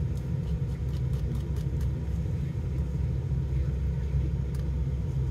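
Steady low rumble of a car idling, heard from inside the cabin, with a few faint clicks from eating with a plastic spoon in the first two seconds and once more near the end.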